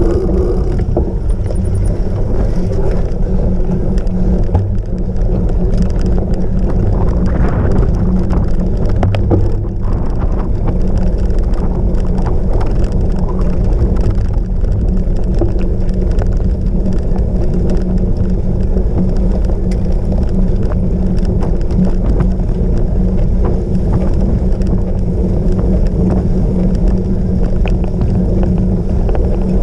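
Steady rumble of a cyclocross bike ridden hard over rough off-road ground, with many small rattles and knocks.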